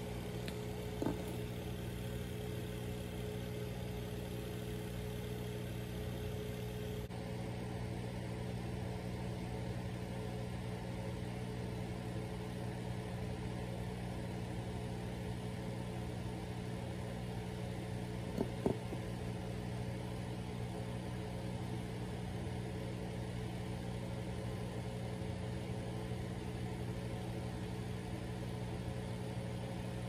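Steady low hum of running aquarium equipment, with a short sharp click about a second in and two quick clicks a little past halfway.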